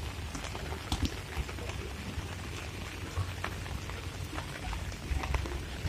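Rain falling steadily, an even hiss over a low rumble, with a few faint scattered knocks.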